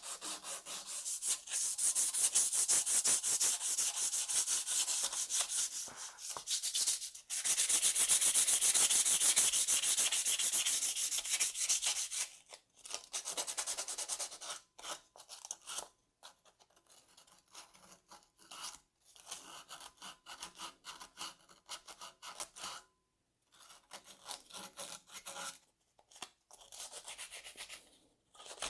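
Sanding the rust off a snowmobile's steel exhaust muffler: fast, dense rasping strokes, loud and almost unbroken for the first dozen seconds, then lighter, shorter runs with brief pauses between them.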